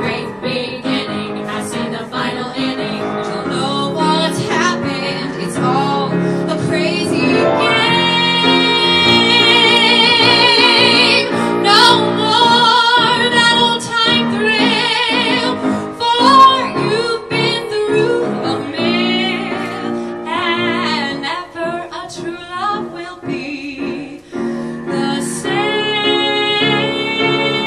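A woman sings a solo vocal line with live piano accompaniment. Around the middle she holds long notes with a wide vibrato, and this is the loudest part.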